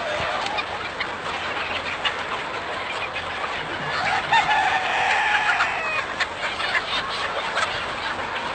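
A large flock of chickens clucking all at once in a dense, continuous chatter, with one long rooster crow standing out around the middle.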